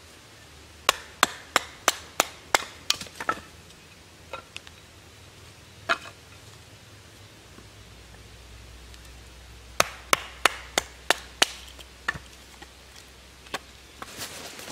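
Kindling being split on a chopping stump: sharp wooden knocks come in two quick runs of about three strikes a second, with a few single knocks between and after.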